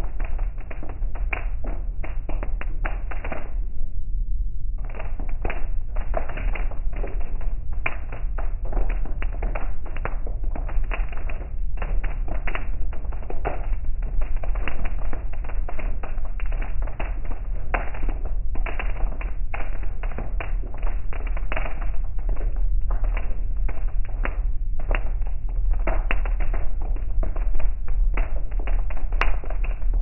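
Heavy rain striking a car's roof and windscreen, heard from inside the cabin: a dense, irregular patter of drop impacts over a steady low rumble of the moving car. The patter stops for about a second around four seconds in, then resumes.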